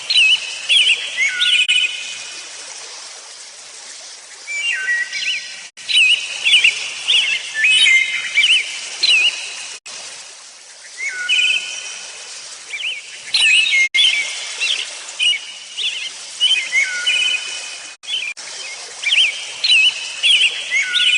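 Small songbirds singing in a forest, repeating short phrases of whistled notes with quick downward glides every few seconds over a steady outdoor hiss. The sound is cut by brief silent drop-outs about every four seconds.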